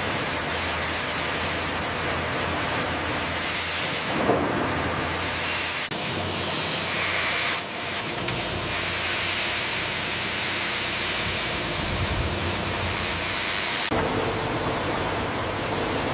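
Sawmill machinery running with a steady, hiss-like industrial noise, changing abruptly twice.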